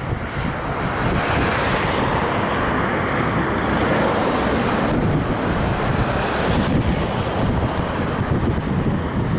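Continuous rushing roar of a volcanic eruption, with a lava fountain and ash jetting from the vent, mixed with wind buffeting the microphone. The noise swells brighter for a few seconds, about a second in.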